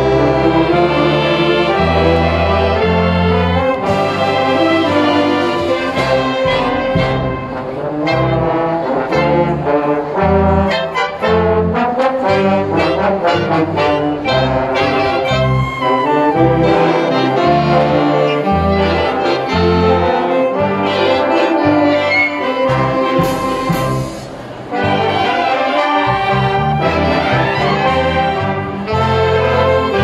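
A symphonic wind band playing live, clarinets, saxophones, trumpets and trombones together. The music briefly drops away about 24 seconds in, then the full band comes back in.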